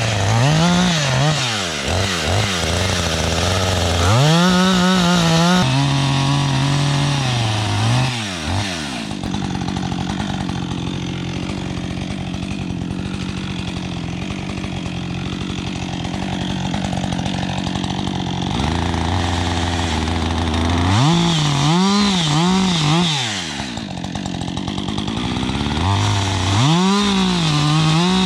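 Husqvarna 562 XP chainsaw, new and being broken in, kept below three-quarter throttle. It revs up and down several times, then holds a steady part-throttle note for about nine seconds while cutting a small poplar. It drops briefly to idle about two-thirds of the way through, then revs up and down again near the end.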